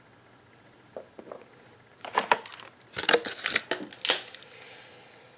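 Small plastic toy figurines and their packaging being handled: scattered clicks and crackles, with a couple of denser clusters past the middle.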